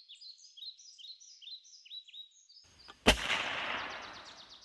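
Birds chirping in a run of short repeated notes, then about three seconds in a single loud gunshot that echoes away over a second and a half.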